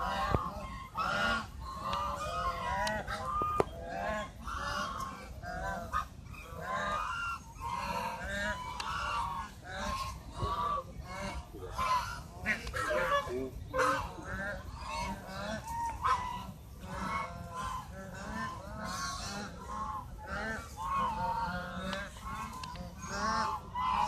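A flock of domestic geese honking, many overlapping calls with no pause.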